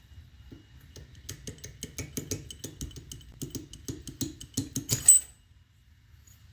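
Small metal parts of a hydrostatic transaxle clinking and clattering as they are handled, a quick run of clicks for about four seconds ending in a louder clink near the end.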